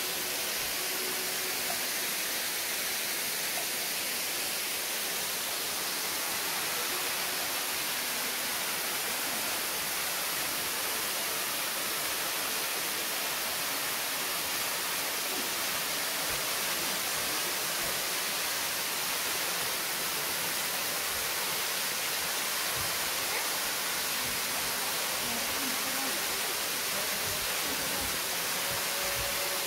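Tall waterfall pouring down a rock face into a plunge pool: a steady, even hissing rush of falling water.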